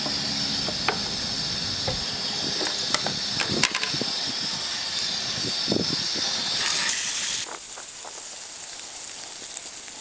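Oil sizzling and crackling in a hot frying pan: a steady hiss with scattered pops and spits. The hiss falls away about seven and a half seconds in, while the crackling goes on.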